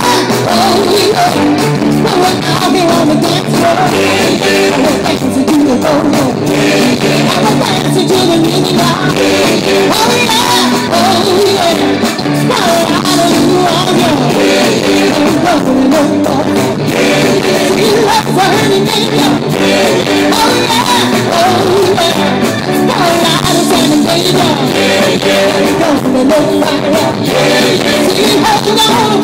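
Live rock and roll band playing loud and steady, with singing and electric guitars.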